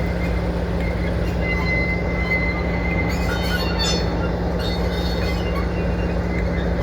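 Class 47 diesel locomotive's Sulzer twin-bank engine running steadily as it shunts, with the wheels squealing on the rails: a thin high squeal from about a second and a half in, breaking into shorter squeaks over the next couple of seconds.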